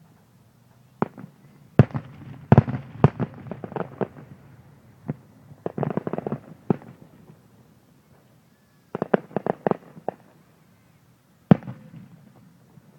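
Fireworks exploding: sharp bangs and crackling in several clusters with gaps between them, ending with a single loud bang near the end.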